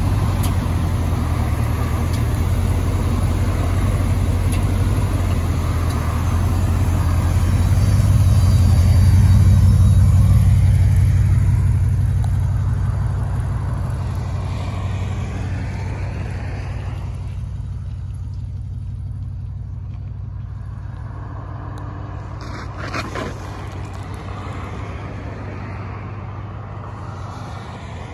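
LS V8 engine of a 1973 Chevy Nova SS rumbling at low speed. It swells about a third of the way in as the car pulls away, then fades steadily as it drives off into the distance.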